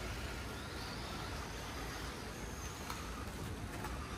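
Faint whine of electric RC rally cars driving, rising briefly in pitch early on, over a steady low rumble, with a few light clicks near the end.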